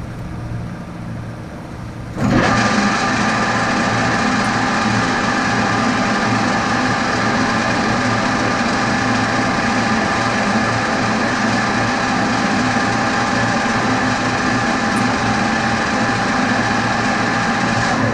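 Metal lathe running with a steady mechanical whine; about two seconds in it gets abruptly louder and then holds steady.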